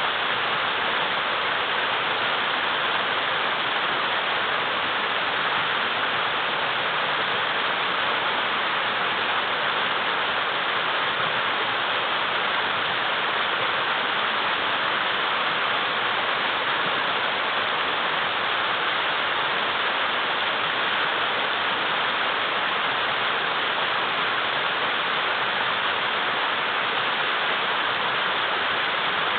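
A wide mountain river rushing over many large boulders: a steady, full rushing of water with no change.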